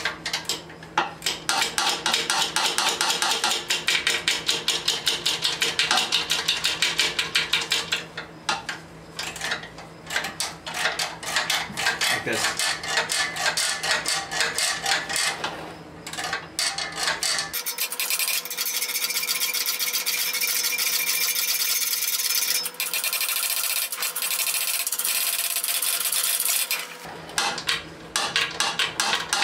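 Socket ratchet clicking in quick runs as nuts are tightened onto an exhaust flange's spring bolts. A little past halfway, a steady rasping hiss takes over for about ten seconds, then the clicking returns near the end.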